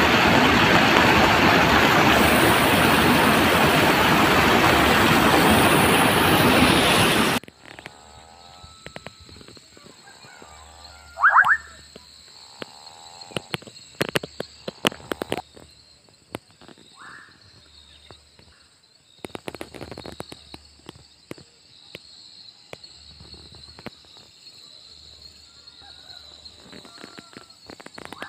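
Fast, swollen stream rushing through a concrete culvert under a bridge: loud and steady, cutting off abruptly about seven seconds in. After it comes a quiet outdoor background with scattered clicks and a few short rising calls, typical of frogs.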